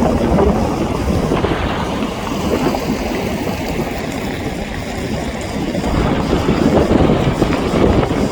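Sea waves breaking and washing ashore, with wind rumbling on the microphone; the surf eases a little partway through and swells louder again in the second half.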